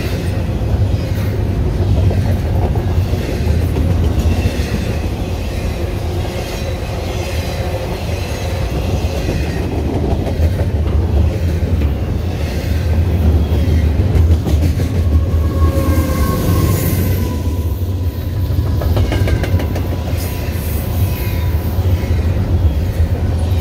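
Double-stack intermodal container well cars rolling past at speed: a steady heavy rumble of steel wheels on the rail with a rapid clickety-clack over the joints. A thin ringing tone rises out of the rumble for a few seconds past the middle.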